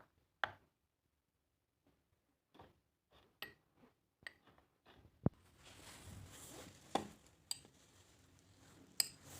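Kitchenware being handled while a home remedy is made: scattered knocks and clinks of utensils against dishes, about four of them ringing briefly like metal or glass. A soft hiss runs through the second half.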